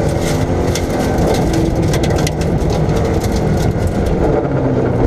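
Rally car engine pulling hard, heard from inside the caged cabin, its pitch wavering a little with throttle. Tyres on gravel, with frequent sharp ticks of loose stones striking the underbody.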